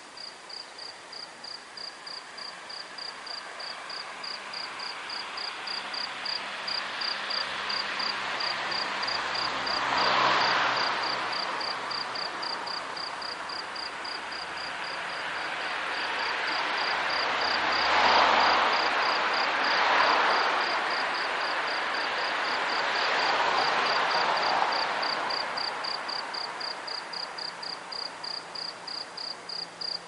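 A cricket chirping steadily on one high note, about three chirps a second. Behind it, a broad rushing noise swells and fades several times, loudest about a third of the way in and again a little past the middle.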